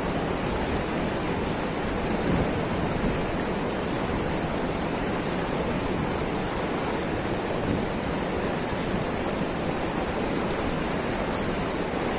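Steady rush of fast-flowing river water: an even, unbroken noise with no rise or fall.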